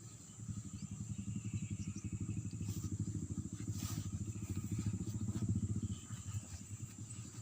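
Small motorcycle engine running nearby, its fast even firing pulses swelling in about half a second in and easing off near the end, with a steady high insect buzz underneath.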